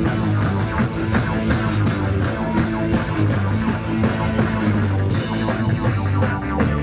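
Live band playing a rock song, with a pulsing bass line, electric guitar and drums.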